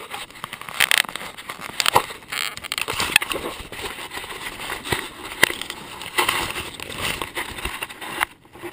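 Handling noise: fabric rustling against the camera, with scattered sharp clicks and knocks as it is moved about against clothing and backpack straps.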